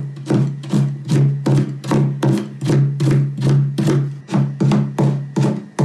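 Kitchen knife chopping daikon radish into fine julienne on a plastic cutting board, with even strikes about three a second, over background music.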